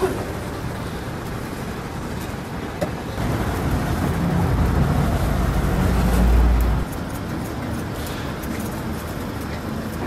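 Steady street traffic noise, with a vehicle's low engine rumble swelling from about four seconds in and cutting off abruptly near seven seconds.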